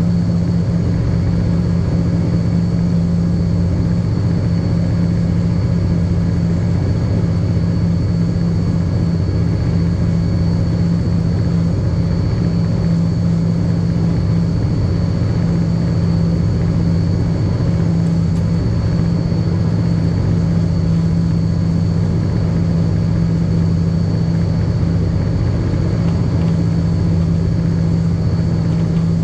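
Diesel-electric banking locomotive's engine running at a steady, even drone, heard from on board, with a thin steady high whine above it.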